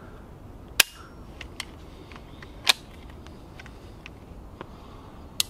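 Springfield 67F 20-gauge pump-action shotgun firing twice, about two seconds apart, with smaller mechanical clicks between the shots and a sharp click near the end.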